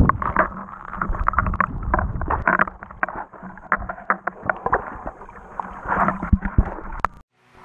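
Water heard through a camera held underwater: a muffled rumble of moving water with a rapid, irregular patter of small clicks and pops. It cuts off suddenly about seven seconds in.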